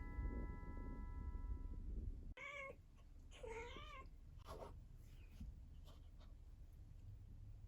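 Kitten in heat calling: after a cut about two seconds in, two drawn-out yowls with wavering pitch, then a few shorter calls. Before the cut there is a low steady purr.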